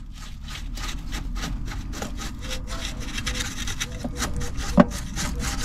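Brush scrubbing grit and dirt out of a plastic electrical connector housing, in quick back-and-forth strokes at about four a second, with one sharper knock near the end.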